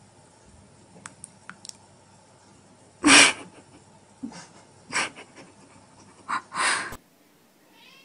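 Four short, rough meow-like animal calls, the loudest about three seconds in, with a few faint clicks before them.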